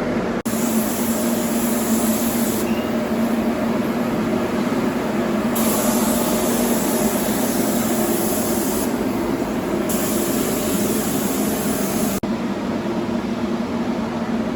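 Spray gun hissing in three bursts of a few seconds each while white primer is sprayed, over the steady drone of a ventilation fan.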